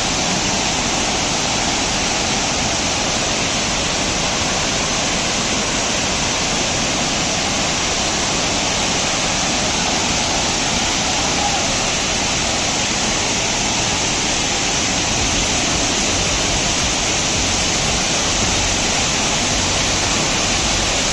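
Steady rushing of a large waterfall, water pouring and splashing over rock.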